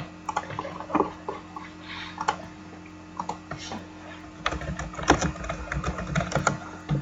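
Computer keyboard typing: scattered key clicks, with a quick run of keystrokes from about halfway through, over a faint steady electrical hum.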